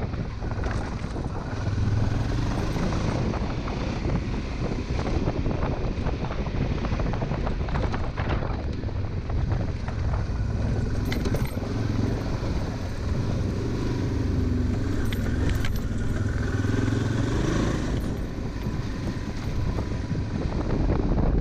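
Honda Transalp 600's V-twin engine running steadily under way on a dirt track, with scattered knocks from the rough surface.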